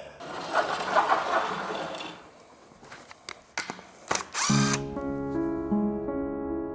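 Stihl chainsaw running briefly and fading out over the first two seconds, followed by a few light knocks. About four and a half seconds in, gentle piano music begins.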